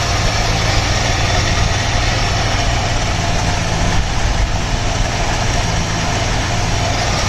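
1978 Dodge Ramcharger engine idling steadily and evenly on the fast idle, cold with the choke working, its Carter two-barrel carburetor freshly rebuilt.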